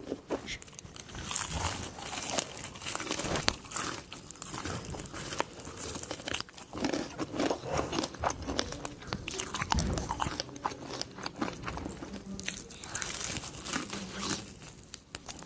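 Close-miked biting and chewing of crunchy food: many sharp, irregular crunches and crackles.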